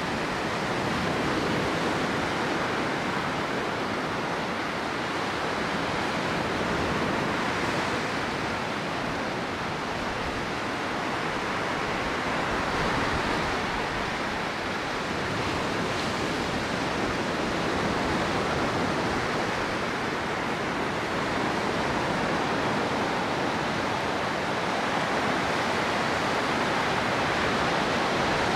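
Baltic Sea surf breaking and washing up a sandy beach: a steady rush of waves that swells and eases gently every several seconds.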